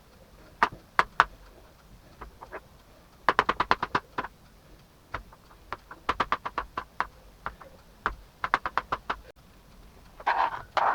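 Kitchen food preparation with a utensil: a few single light taps, then three quick runs of rapid clicking taps, about ten a second, and a short scuffing burst near the end.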